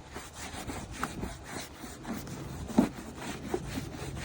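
Microfiber cloth rubbing in circular strokes over a plastic Nissan Pathfinder headlight lens, buffing off a coat of metal polish, with one louder bump a little under three seconds in.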